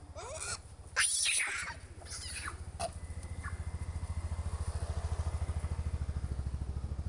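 Rhesus macaques calling: a few short squeals, then a loud harsh screech about a second in and another call shortly after. Under them runs a steady low throbbing like an idling engine, which grows louder through the second half.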